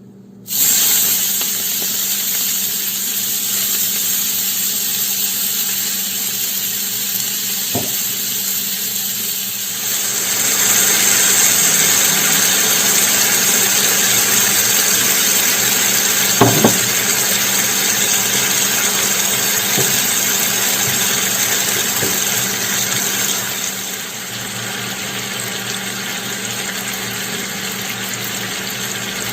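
Steady rushing of running water, as from a kitchen tap. It gets louder about ten seconds in and drops back a little near the end, with a couple of light knocks along the way.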